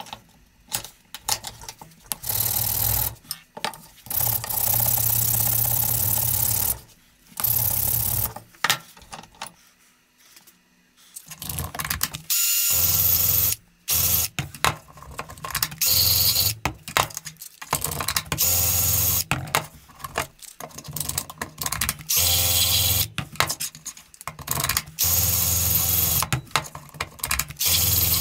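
A small electric power tool run in repeated bursts of one to a few seconds, switched on and off over and over while working aluminium stock, with a quieter pause about ten seconds in.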